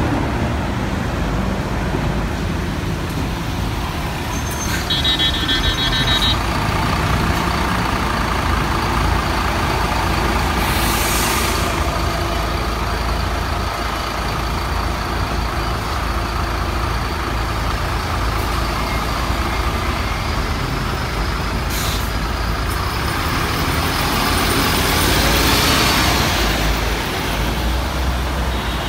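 Bus engine running steadily, with a short electronic beeping about five seconds in and a hiss of air brakes around eleven seconds in. Near the end a vehicle passes, its noise swelling and then fading.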